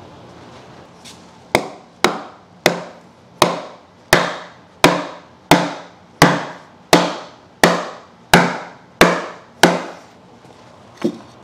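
A hammer driving a wooden cribbing block under a pallet beam: about thirteen steady, evenly paced blows, roughly one and a half a second, each fading quickly, then one lighter knock near the end.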